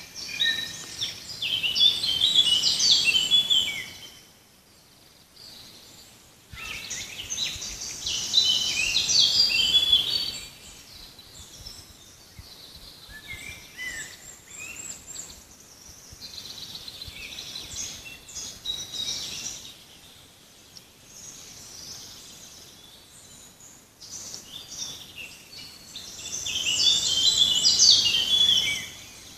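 Songbirds singing in a forest: three loud spells of rapid, twittering song, one at the start, one about seven seconds in and one near the end, with fainter chirps in between.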